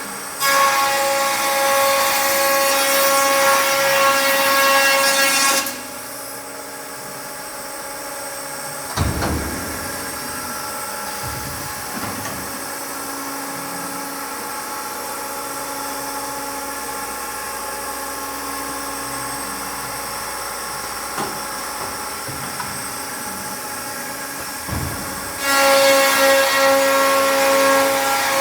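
Triad SSR CNC stair router running with a loud, high-pitched whine. About six seconds in the whine drops to a quieter steady hum, with a knock about nine seconds in and another near the end. The loud whine comes back shortly before the end.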